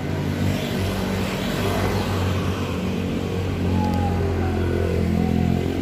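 A motor vehicle engine running steadily at a low, even pitch.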